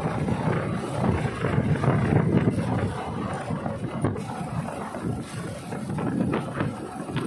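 Motorcycle riding along at road speed: wind rumbling and buffeting on the mounted camera's microphone, with the engine running underneath.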